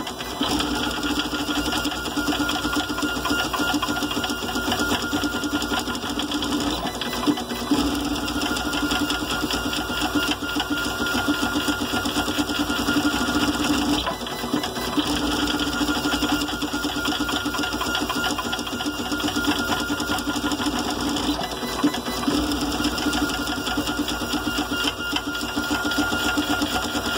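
High-speed 3D printer running at 400 mm/s with 16 m/s² acceleration: its stepper motors give a rapid stuttering buzz and a pitched whine as the print head darts back and forth in constant quick direction changes. The whine drops out briefly every six or seven seconds.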